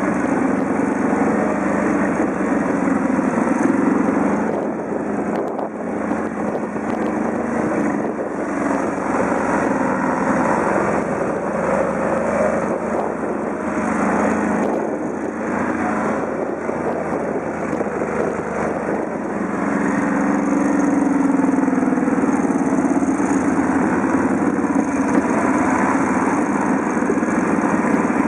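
Bombardier quad bike's 800 cc V-twin engine running under way, heard from aboard the moving machine, with the throttle varying and the engine getting louder about two-thirds of the way through.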